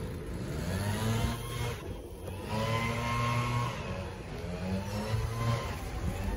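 Small engine of a garden power tool revving up and down several times, held at a steady pitch between the revs.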